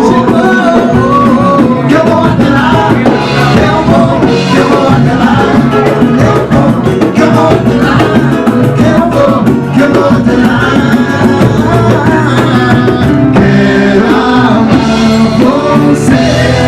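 Samba music: a band playing a steady percussion groove with singing over it.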